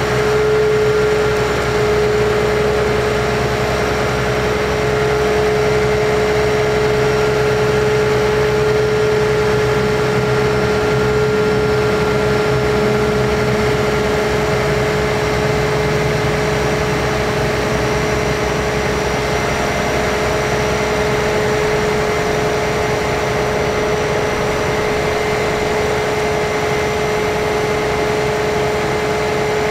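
Cummins ISC diesel engine of a Kenworth T300 bucket truck running steadily while its hydraulics work the Hi-Ranger boom, with a steady whine over the engine sound.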